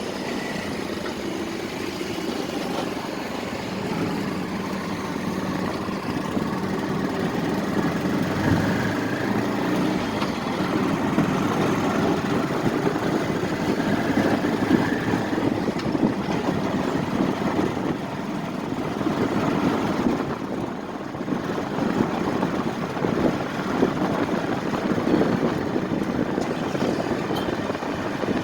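A motor vehicle's engine running, with a continuous rumble that rises and falls slightly.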